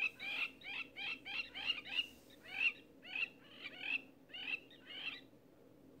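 Longclaw calling: a run of about a dozen short, sharp downward-sweeping notes, roughly two a second, that stops shortly before the end.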